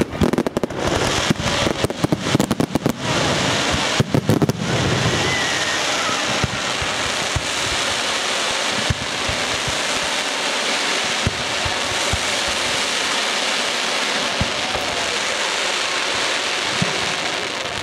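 Fireworks going off: rapid bangs for the first five seconds or so, then a dense, steady hiss that lasts to the end.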